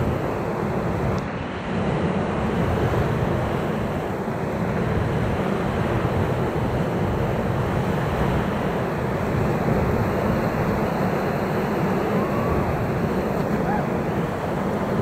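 Whitewater rapids of the Ocoee River rushing around an inflatable raft: a steady, loud rush of churning water.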